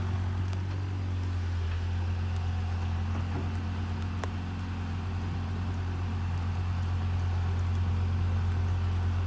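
Kobelco excavator's diesel engine running steadily, with one short sharp click about four seconds in.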